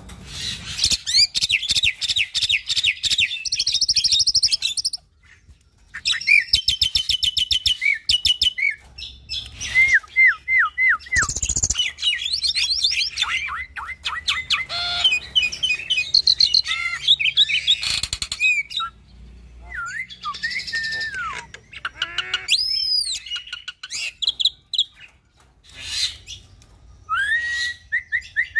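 Hybrid myna (Nias hill myna × Asian pied starling cross) singing a long, varied song of rapid rattling trills, clicks and whistled notes, many of them gliding downward. The song breaks off briefly about five seconds in, and near the end come rising whistles.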